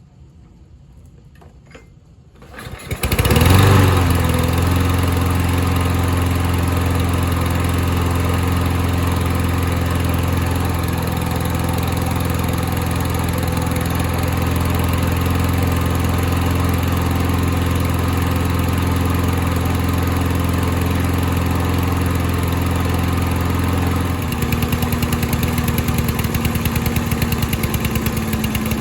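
Troy-Bilt self-propelled lawn mower's small engine, its carburetor freshly cleaned, starting about three seconds in and then running steadily. About 24 seconds in its note changes and it runs a little louder and less even.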